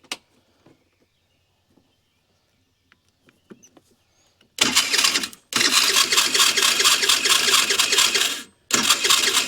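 Electric starter of a 50cc GY6 four-stroke scooter engine cranking in three bursts, the middle one about three seconds long, with the spark plug out of the head. It makes a harsh mechanical rattle, which the mechanic takes for worn Sprague gears, the starter's one-way clutch, going bad.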